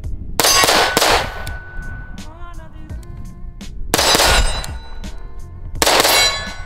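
Shots from a compensated 7.5-inch 300 Blackout AR-15 pistol, sharp and loud, fired at a steady pace: two close together near the start, then one about four seconds in and another near the end.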